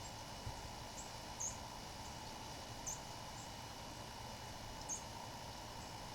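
A songbird giving short, very high-pitched chirps, four or five of them at irregular intervals, over a steady outdoor hiss.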